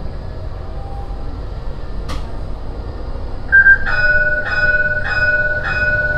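Low steady running rumble of a battery-powered tram heard inside the driver's cab, with a single click about two seconds in. About three and a half seconds in, the tram's electronic warning bell sounds, one short loud tone and then four ringing pulses a little over half a second apart, as the tram crosses an intersection.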